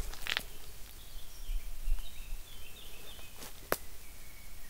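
A small songbird twittering in a short high run of chirps, with two single footsteps crunching on the trail, about a third of a second in and near the end.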